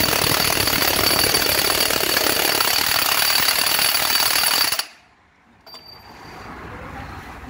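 Electric impact wrench hammering on a bolt of a truck gearbox housing, a loud continuous rattle that stops abruptly about five seconds in.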